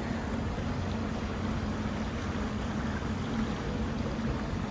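A sailing yacht's inboard engine runs steadily while under way at low speed, a constant low drone mixed with the wash of water along the hull.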